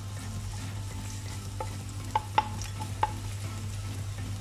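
Chopped garlic sizzling gently in olive oil in a pan while a wooden spatula stirs it, with four light taps of the spatula against the pan in the middle. A steady low hum runs underneath.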